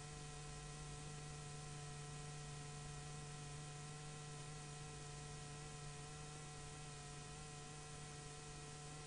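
Steady low hum with several faint steady tones over an even hiss: the noise of a blank stretch of videotape playing back.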